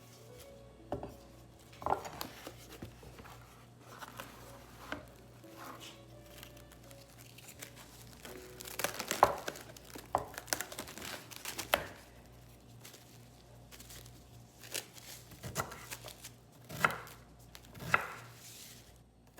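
Crinkling and rustling of packaging, with scattered light knocks and clicks, the busiest stretch about halfway through and a few sharper knocks near the end.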